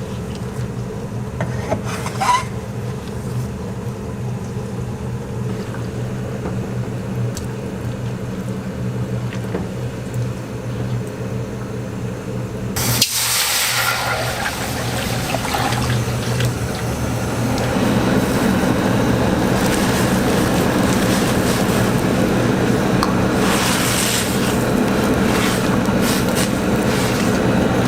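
Frying in a hot wok: a steady low hum, then about halfway through a sudden loud sizzle as ingredients go into the hot oil. The sizzle carries on and grows louder again later.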